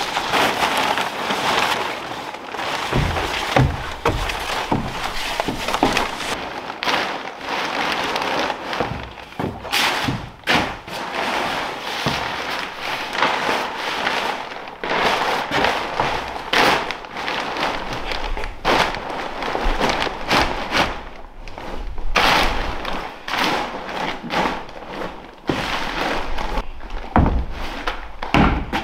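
Black plastic sheeting being bundled up and stuffed into a plastic trash can: crinkling and rustling, with a few dull thumps.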